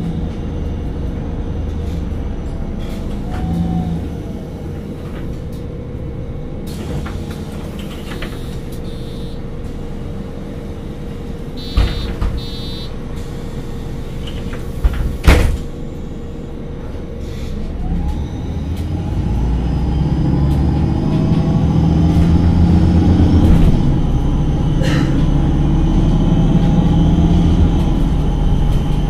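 MAN NG 273 articulated bus with an LPG-fuelled engine, idling steadily at first. About halfway through there is a short run of beeps, then a single loud thump. Near the end the engine picks up and the bus pulls away, its sound rising in pitch and growing louder.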